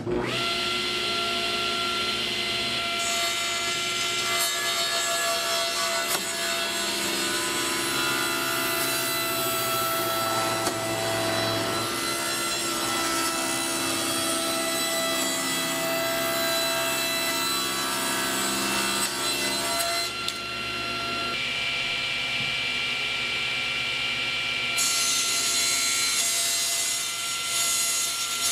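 Table saw running and ripping through panels, a steady motor-and-blade whine with the noise of the cut. The sound changes abruptly several times as different cuts follow one another.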